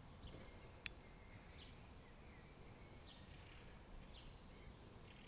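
Near silence: faint outdoor ambience with a low rumble and soft, high, short chirps about once a second, broken by one sharp click about a second in.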